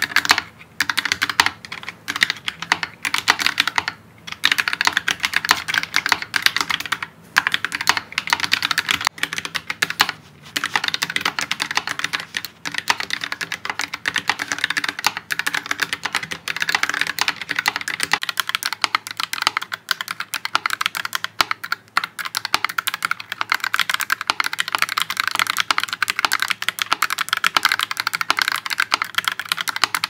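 Typing on an Akko Doraemon Macaron 5108B mechanical keyboard fitted with Akko Jelly Pink switches: a fast, steady run of keystroke clacks, broken by a few brief pauses.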